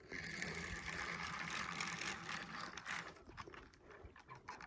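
Fishing reel whirring under the load of a big hooked bass, steady for about three seconds, then trailing off into scattered clicks.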